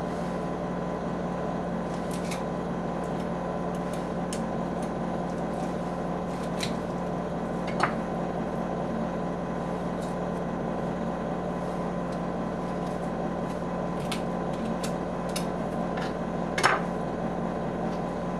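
Knife clicking on a wooden cutting board as rabbit meat is cut from the bone, a few light clicks and two sharper knocks, one about eight seconds in and one near the end, over a steady electrical hum.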